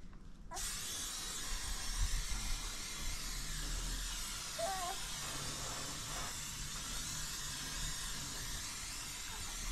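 Aerosol spray-paint can hissing in a long steady spray, starting about half a second in.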